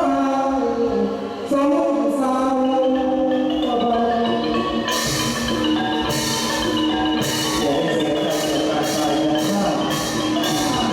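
Thai traditional ensemble music led by xylophone-like mallet percussion playing melodic lines, joined about halfway through by sharp strokes on a steady beat.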